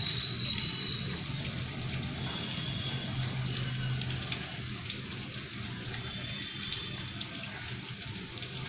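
Steady even hiss with a faint low hum, like running water or a fan, holding level throughout.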